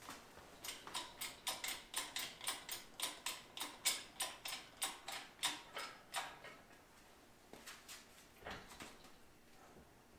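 Shop engine hoist's hydraulic jack pumped by hand as it lifts a load: a quick, even run of clicks, about four a second, that stops about six seconds in, followed by a few scattered knocks.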